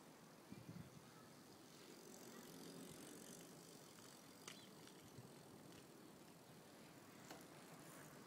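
Near silence: faint street ambience as a bicycle rides past close by, with a few soft knocks and light clicks.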